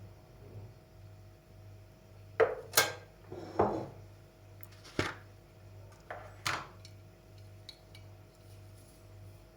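A spoon knocking and clinking against kitchenware about six times in a few seconds, one knock dragging into a short scrape, over a steady low electrical hum.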